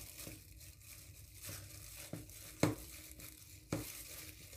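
Disposable plastic gloves and cling film rustling and crinkling as hands press crumbled chocolate sponge cake into a film-lined round pan, with a few sharp ticks.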